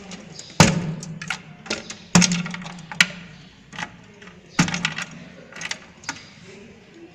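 Irregular clicks and knocks from front-panel connector plugs being pulled off a Dell desktop motherboard and cables being handled inside the sheet-metal case. A few louder knocks stand out among the lighter clicks.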